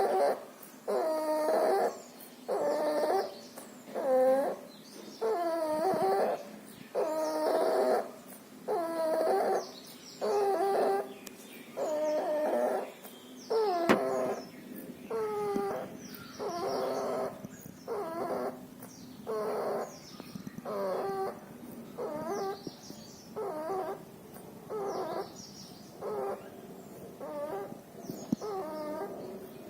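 A sick puppy's laboured breathing, each breath carried on a pitched whimpering wheeze, about one a second in a steady rhythm. It is the noisy breathing of a puppy with pneumonia and distemper. A single sharp click sounds near the middle.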